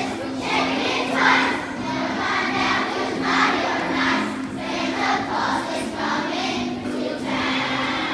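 A large group of schoolchildren singing a Christmas carol together, swelling louder about a second and three seconds in.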